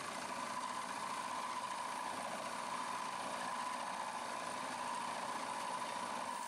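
Small milling machine running an end mill through a metal tool-holder blank, a steady machining whine with an even hiss from the compressed-air blast and cutting-oil spray that clear the chips.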